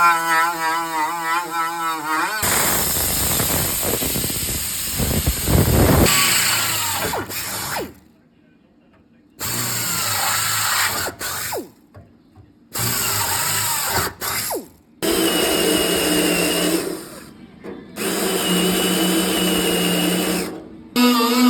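Handheld power tool running in several separate bursts of a few seconds each, with short pauses between them.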